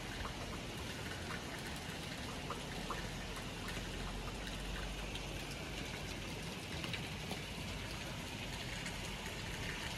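Steady rain falling, with many small drops ticking on hard surfaces such as a polycarbonate conservatory roof.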